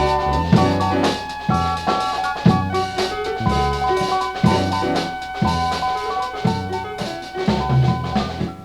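Instrumental music track with a drum kit and bass keeping a steady beat; it fades out and ends near the end.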